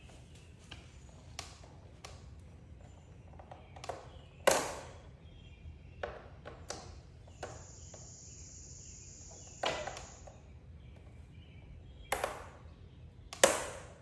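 Scattered clicks and knocks of hands working wiring and plastic clamps on a motorcycle fairing, four of them sharper and louder. A high steady tone sounds for about three seconds in the middle, over a low hum.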